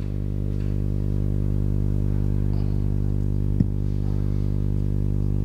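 Steady low electrical hum, with one soft knock about three and a half seconds in.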